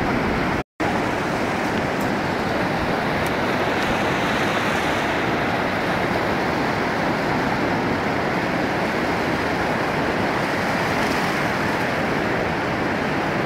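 Floodwater of the swollen Biała Tarnowska river rushing steadily, a loud unbroken wash of water, with a brief dropout to silence about two thirds of a second in.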